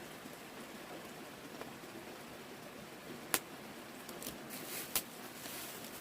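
Steady hiss of falling rain, with two sharp clicks a little over three seconds and about five seconds in, and some rustling near the end.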